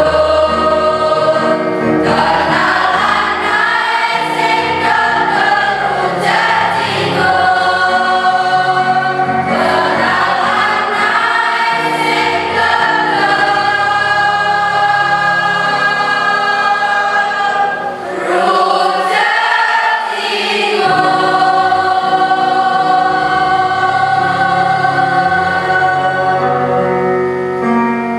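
Mixed student choir singing in harmony, with long held chords and a short break about two-thirds of the way through. It closes on a held chord that begins to fade at the very end.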